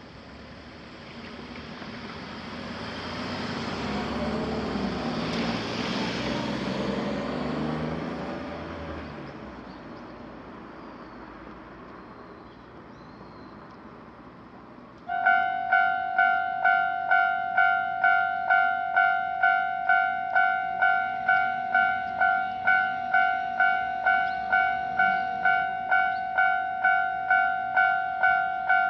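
A vehicle passes, its noise swelling and fading over several seconds. About halfway through, a Japanese railroad crossing's electronic warning bell starts abruptly and rings a steady two-tone ding about twice a second, the signal that a train is approaching.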